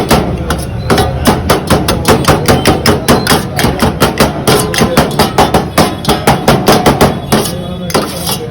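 Rapid, steady chopping strikes of a knife or cleaver on a board, about five or six a second, cutting up shawarma chicken, with a brief pause near the end.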